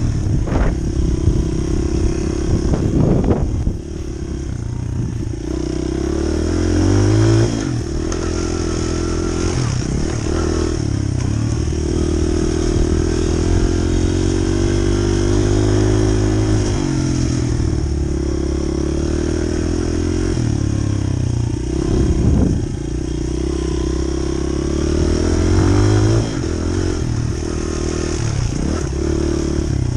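Honda CRF100F dirt bike's four-stroke single-cylinder engine being ridden hard, its pitch rising and falling again and again as the throttle is opened and closed.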